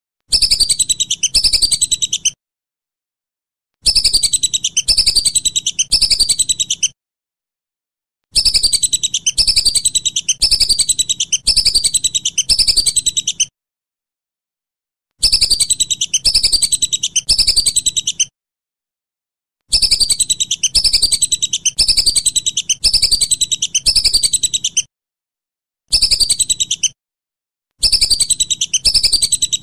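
Whistling duck (belibis) calling: runs of high, falling whistled notes, about two a second, in bursts of one to five seconds broken by short gaps of complete silence.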